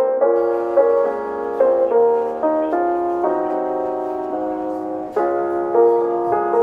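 Background music: a gentle piano melody with chords, notes struck about twice a second.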